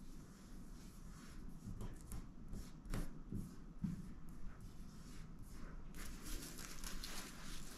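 Hands rubbing and pressing thin tent mesh while smoothing down an adhesive mesh repair patch, with soft fabric rustling and a couple of light taps. About six seconds in the rustling gets louder as the mesh fabric is gathered and pulled.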